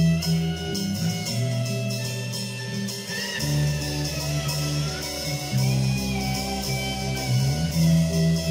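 Instrumental band music: guitar over sustained bass notes that change every second or two, with a light, regular ticking high above.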